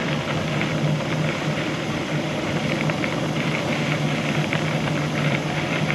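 Bicycle rolling along a gravel rail trail: steady tyre noise on the gravel with small scattered crunches, mixed with wind on the microphone, over a constant low hum.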